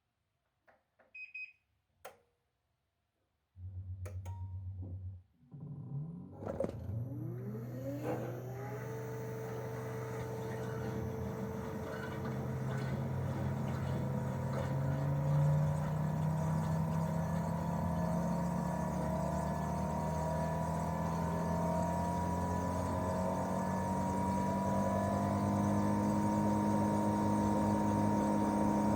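Daikin R28RMV inverter mini-split outdoor unit starting up in cooling mode. After a few faint clicks and a short beep, a low steady hum sets in for about a second and a half, drops out briefly, then the twin-cylinder swing compressor's whine glides upward as the inverter ramps it up. It settles into steady running whose tones keep slowly rising in pitch and level.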